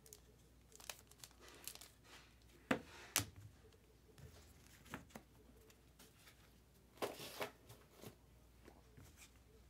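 Baseball card pack wrapper crinkling and tearing as it is opened, with cards being handled. The loudest crackles come a little under 3 seconds in and around 7 seconds.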